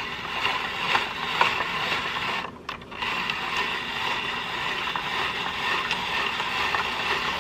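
Hand-cranked spiralizer turning and cutting zucchini into noodles: a steady mechanical rasping and ratcheting from the crank, with a brief pause about two and a half seconds in.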